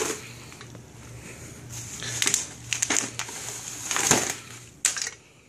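Bubble wrap crinkling and rustling in irregular handfuls as it is pulled off a chrome exhaust pipe, loudest about four seconds in.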